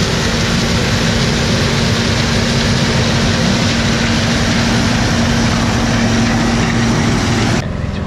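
John Deere combine running under load as its corn head takes in and harvests standing corn stalks: a loud, steady mechanical din with a constant hum, stopping abruptly near the end.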